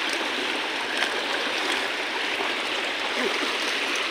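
Steady rushing of water against a rocky shore, even throughout, with a few faint ticks now and then.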